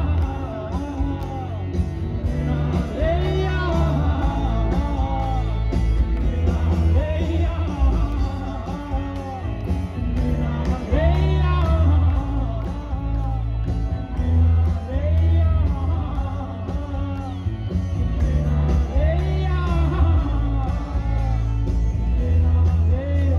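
Live rock band playing: electric guitars and bass over a steady drum-kit beat, with a sliding, bending vocal or lead line on top.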